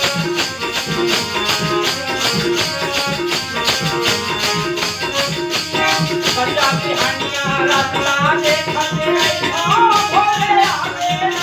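Devotional bhajan ensemble playing: harmonium held tones over a steady beat of hand drums, jingling wooden hand clappers (kartal) and small hand cymbals. A voice joins in singing over the second half.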